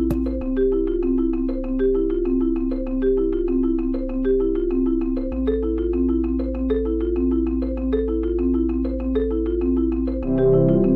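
Background music: a quick, repeating melody of short struck notes over a held low bass tone that shifts pitch a couple of times.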